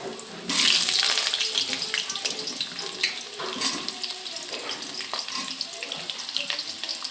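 Kitchen tap running water into a sink, starting up about half a second in, with scattered small knocks.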